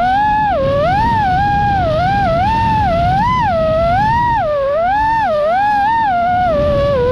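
Motors and props of an iFlight Nazgul Evoque FPV quadcopter whining, the pitch rising and falling again and again as the throttle is worked, over a rough rush of wind and prop wash, heard from the camera on board.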